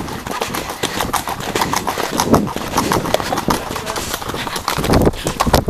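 Horses' hooves clip-clopping on a grassy dirt track, heard from the saddle of one of the ridden horses, with a low rumble near the end.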